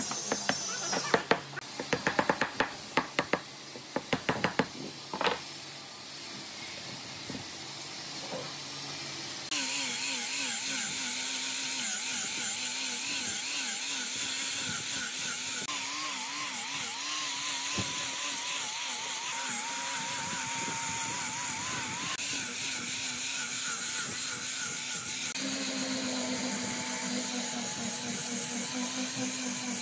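A hammer taps repeatedly on a clamped curved wooden workpiece for the first five seconds or so. About ten seconds in, an electric angle grinder fitted with a sanding disc starts and runs steadily as it sands the curved wood, its pitch wavering as it is pressed and moved over the surface.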